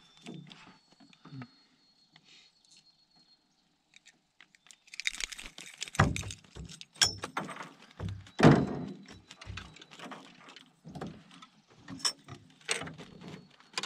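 Irregular sharp knocks and clatter in a canoe, beginning about a third of the way in after a few nearly quiet seconds.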